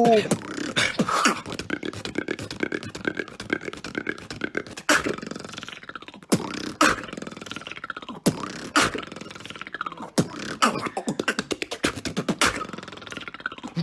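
Beatboxing: a fast, dense run of sharp vocal drum hits and clicks, with held tones running under them.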